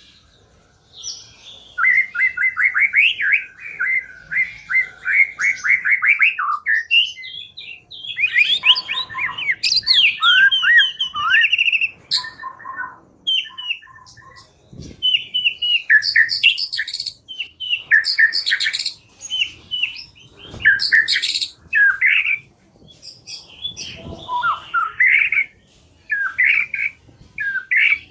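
White-rumped shama (murai batu) singing: a fast trill of rapidly repeated notes for several seconds, then bursts of varied chattering notes and short whistled phrases with brief pauses between them.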